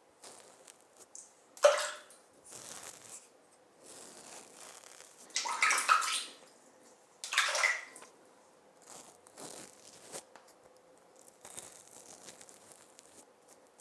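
A man shaving with a razor: irregular scraping strokes with wet, splashing water sounds, coming in short bursts, the loudest about halfway through.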